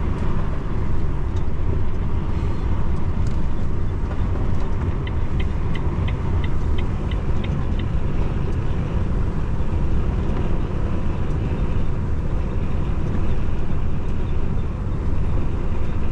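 Steady low rumble inside a Volvo truck's cab at highway speed: engine and tyres running on a wet road. About five seconds in comes a short run of light, evenly spaced ticks, about three or four a second.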